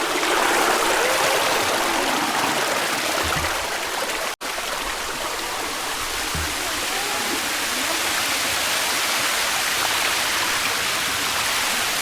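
Rushing water of a mountain stream, a steady hiss that cuts out for an instant about four seconds in.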